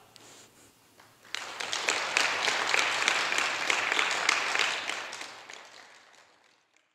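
A small audience applauding, starting about a second in and fading away near the end.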